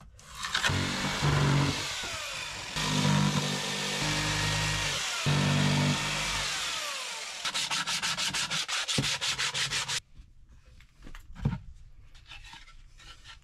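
An electric power tool working on wood, running steadily with a motor hum for about ten seconds. It pulses rhythmically near the end, then stops abruptly, followed by a few light knocks.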